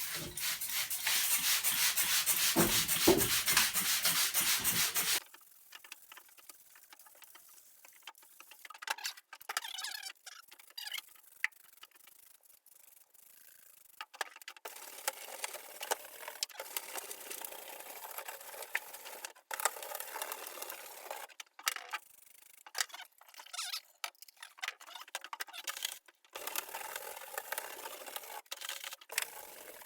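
Scraping and sanding of dry-rotted wood being cleaned out: a loud, dense stretch of rapid strokes for about the first five seconds, then quieter, irregular rubbing strokes with short pauses.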